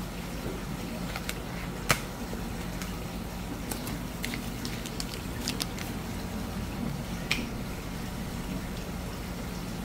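Steady machine hum with a faint watery hiss, broken by a few sharp clicks and taps as plates are handled; the loudest click comes about two seconds in.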